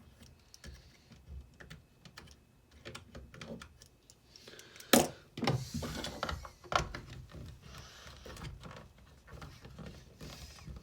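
Scattered clicks, taps and knocks of hands handling and prying at the parts of an opened old Black & Decker cordless drill, with a sharper knock about five seconds in.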